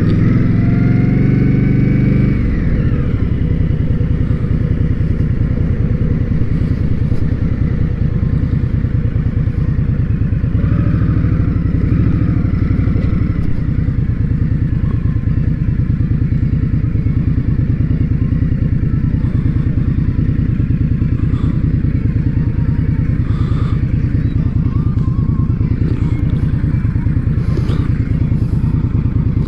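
Indian Scout Bobber's V-twin engine running while under way on a ride. The revs climb over the first two seconds and then fall away, and the engine pulls harder again briefly about ten seconds in.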